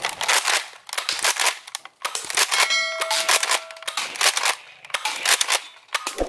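Nerf Elite Surgefire dart blaster being pumped and fired again and again, a quick run of sharp plastic clacks and pops. A bell-like ding rings out about three seconds in.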